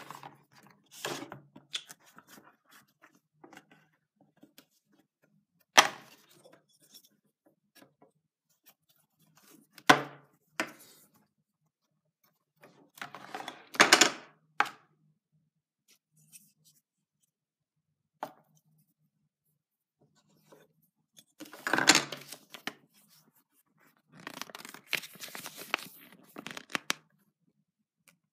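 Board game pieces and cardboard board being handled on a table: four sharp knocks several seconds apart as pieces are set down, with small clicks between and rustling near the end.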